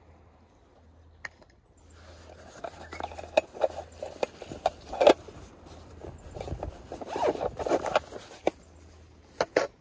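A black cloth pouch being handled as a round metal lid is slid into it: fabric rustling and rubbing with scrapes and sharp clicks, loudest about halfway through, and two quick clicks near the end.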